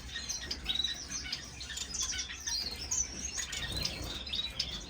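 Many small cage finches chirping at once, a dense chatter of short, high calls overlapping one another.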